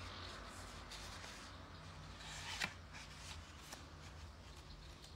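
Faint rustling handling noise over a low steady hum, with one sharp click about two and a half seconds in and a softer one a second later.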